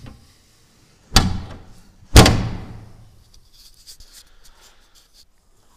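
Two loud slams about a second apart, the second louder, each followed by a short ringing tail: locker lids on an aluminium fishing boat being shut. A few faint clicks and rattles follow.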